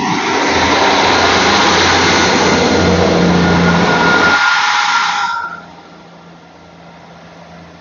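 A two-car Class 158 diesel multiple unit pulls away and runs past close by, its engines and wheels making a loud, steady noise. The noise cuts off fairly suddenly about five and a half seconds in as the train clears.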